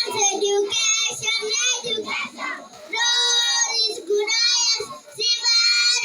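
Children singing in high voices, in held phrases separated by short breaks.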